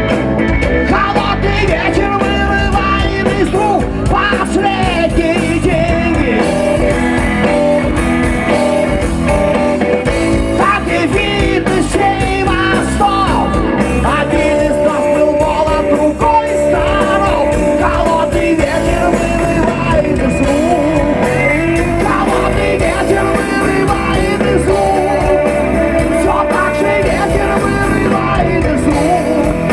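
A rock band playing live, with guitar and singing.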